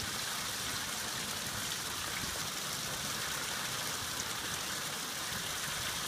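Water fountain running: falling water splashing steadily into its basin.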